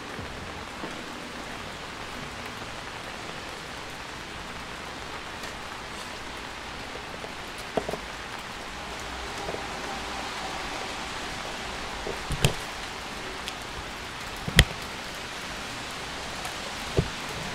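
Steady rain falling on a wet street, an even hiss, with a few sharp taps; the two loudest come about twelve and fourteen and a half seconds in.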